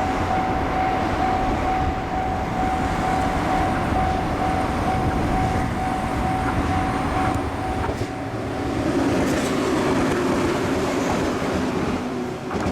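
A train running past over the rails with a steady rumble, while the level-crossing warning bell rings; the bell fades out about two-thirds of the way through as the train noise swells again.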